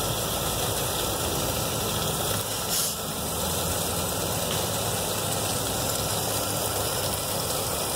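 A steady, even roar with a low rumble and hiss, like a burner or motor running, holding unchanged apart from a brief dip about three seconds in.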